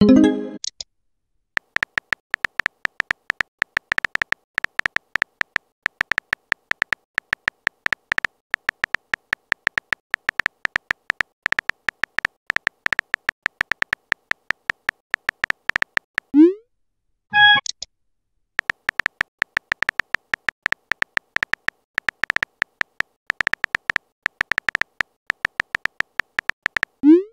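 Phone keyboard typing sound effect: a fast run of small clicks, one per keystroke. It breaks off for a short rising pop and a brief bright chirp, the chat app's message tones: a chirp near the start, a pop and chirp about two-thirds of the way through, and another pop at the end.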